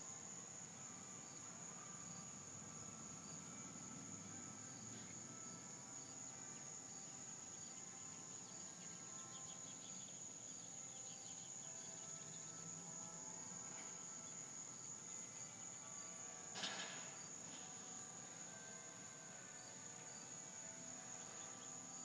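Steady high-pitched chorus of crickets, with one short sharp noise about seventeen seconds in.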